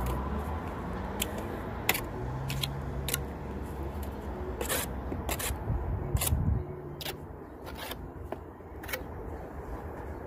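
Steel brick trowel scraping and tapping against a brick and its mortar as the brick is buttered: a string of short, sharp scrapes and clicks. A low engine rumble underneath dies away about two-thirds of the way through.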